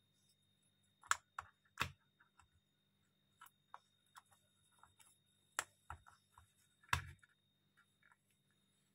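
Wooden jigsaw puzzle pieces clicking and knocking against the wooden puzzle board as they are fitted into place: a scatter of sharp taps, the loudest about a second in and again near seven seconds, over a faint steady hum.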